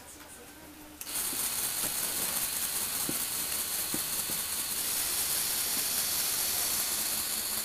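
Lego Technic electric motors and their gear trains whirring as they drive the tilting platform under a model car. The steady high-pitched whir starts suddenly about a second in, with a few faint ticks along the way.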